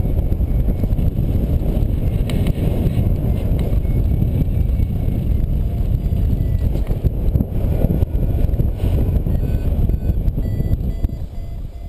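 Airflow buffeting the microphone of a paraglider's camera in flight, a steady low rumble. Faint short beeps of a variometer sound through it at changing pitches, the vario signalling climb.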